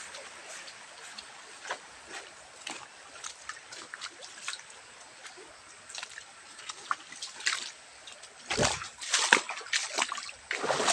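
Footsteps wading through shallow water: irregular splashes and sloshes with scattered small knocks, growing louder and busier near the end.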